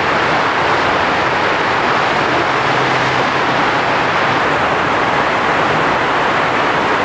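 A FlowRider surf simulator's thin sheet of pumped water rushing up the ride surface, a loud, steady, unbroken rush of water.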